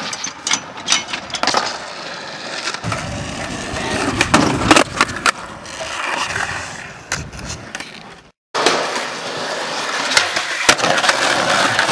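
Skateboard wheels rolling over rough pavement, broken by sharp clacks of the board popping and landing. The sound cuts out for a moment about eight seconds in, then another run of rolling and board impacts begins.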